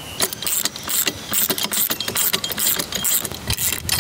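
Ratcheting socket wrench clicking in quick, irregular strokes while the nylon lock nuts on a wheelie guard clamp bar are tightened, with metal tools clinking against each other.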